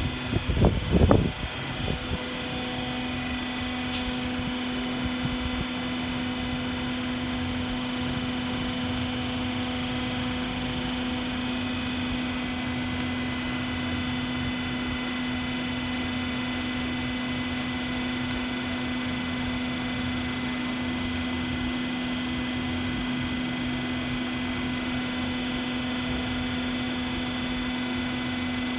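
Hydraulic power pack running with a steady, even hum while it drives a serviced lifeboat hydraulic cylinder on a bench test. A few loud knocks come in the first two seconds.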